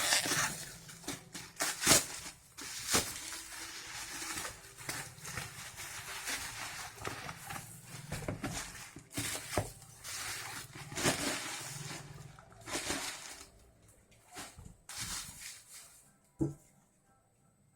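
Package being opened and handled by hand: irregular rustling, crinkling and tearing of packaging with many small clicks, thinning out after about 13 seconds, then a single sharp knock shortly before the end.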